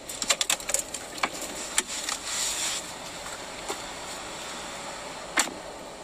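Car door being worked from outside, heard from inside the cabin: a run of sharp clicks and knocks in the first two seconds as it is opened, then the door slammed shut with one sharp bang about five seconds in.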